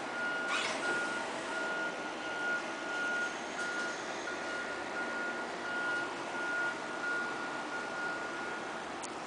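A high, single-pitched electronic beep repeating over and over at an even pace, over a steady background hiss, with a brief knock about half a second in.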